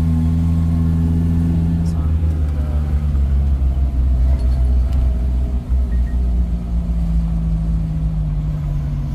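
Tour jeep's engine running steadily as it drives along, a continuous low engine drone heard from on board.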